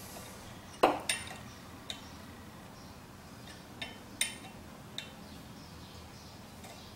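Hex key clinking against the socket head cap screws of a split-bushing hub as they are tightened a little at a time, clamping the bushing onto the motor shaft: about half a dozen light metallic clicks and clinks, spaced irregularly.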